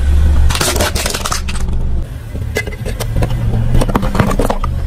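A car tyre rolling over plastic toys and crushing them, with repeated sharp cracking and snapping of breaking plastic over the car's low engine hum.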